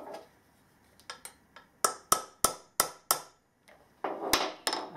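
Light tapping on a part of an electric motor being reassembled: a few small clicks, then five sharp taps about a third of a second apart, then a brief scraping rustle with two more clicks near the end.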